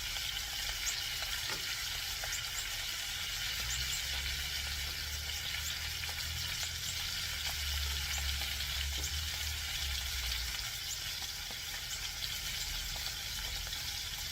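Dried fish (tuyo) frying in hot oil in a pan: a steady sizzle dotted with small crackling pops. A low rumble runs underneath for much of it.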